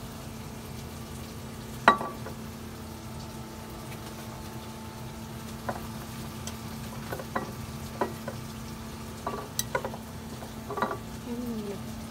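Food sizzling in a pan under a steady low hum, with a sharp clink about two seconds in and a scattering of lighter clinks and knocks as glass bottles are picked up and set down on the counter. A short falling squeak comes near the end.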